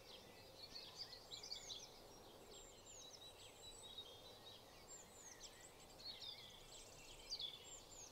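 Faint dawn chorus of several songbirds singing at once, with quick high chirps and trills overlapping throughout.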